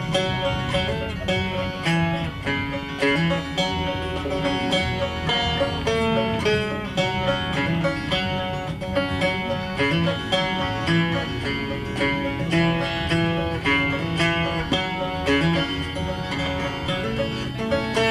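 Fast instrumental music of plucked strings, banjo and guitar in a bluegrass style, with quick picked notes throughout.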